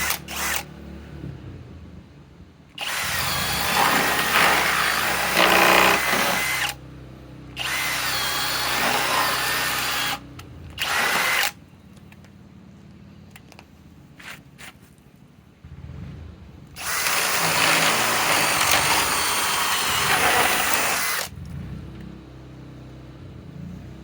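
Masterforce Boost cordless drill boring into wood, run in four bursts with quieter pauses between: a long one about three seconds in, another around eight seconds, a short one near eleven seconds, and a long one near seventeen seconds.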